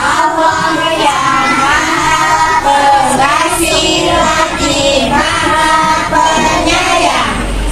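Music with children singing a melody.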